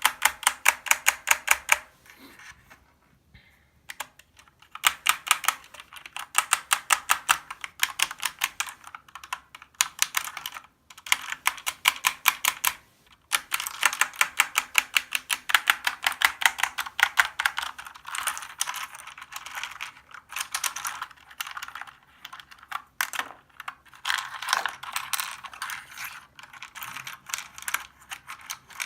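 Fast typing on a Corsair K70 LUX RGB mechanical keyboard: rapid runs of key clicks, many a second, broken by short pauses, the longest about two seconds in.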